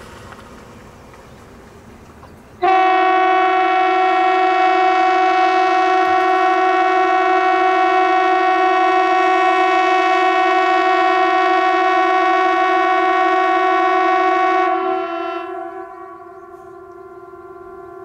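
Norwegian civil defense siren sounding one long steady tone at a constant pitch. It comes on suddenly about three seconds in, holds for about twelve seconds, then drops much quieter and keeps sounding faintly to the end.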